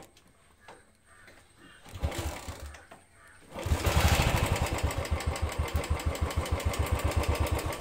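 2017 Royal Enfield Classic 350's single-cylinder engine being kick-started cold after two weeks standing. A first kick about two seconds in turns it over briefly without catching. About three and a half seconds in it catches on the second kick and settles into a steady idle, with the tappet noise the owner puts down to oil not yet pumped up to the tappets after standing.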